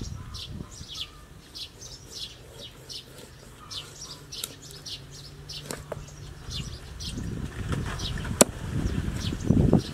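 Small birds chirping repeatedly, short high falling chirps about two a second. Near the end, a cleaver knocks dully on a wooden cutting board, with one sharp loud crack about eight seconds in.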